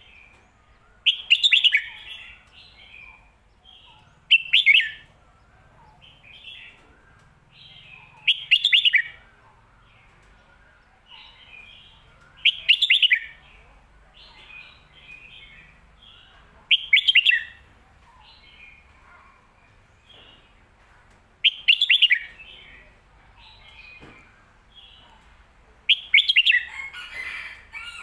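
Red-whiskered bulbul singing: a loud, short warbled phrase about every four seconds, seven in all, with softer chirps between them.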